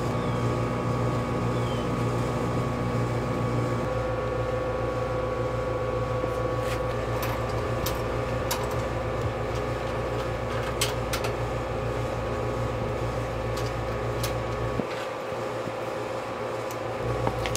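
A steady mechanical hum with a few faint, sharp clicks of a wrench on metal as the bolts of a chrome PTO housing are tightened.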